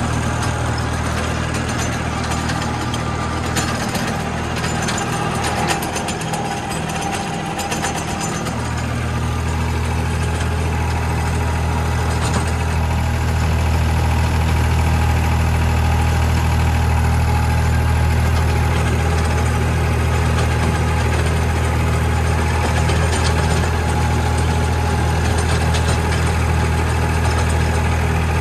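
Tractor diesel engine running steadily, heard from the driver's seat. About eight seconds in the sound changes to a louder, deeper steady engine note, a New Holland tractor driving across the field.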